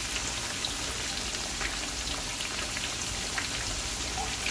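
Kingfish pieces deep-frying in hot oil in a frying pan: a steady sizzle with many small crackles and pops.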